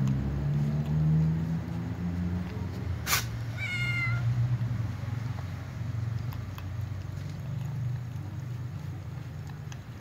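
A domestic cat meows once, briefly, about three and a half seconds in, just after a sharp click, over a steady low hum.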